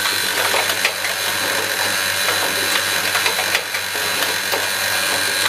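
Automatic switch assembly machine running: a continuous hum and high steady tone under a rapid, irregular clatter of small mechanical clicks and knocks.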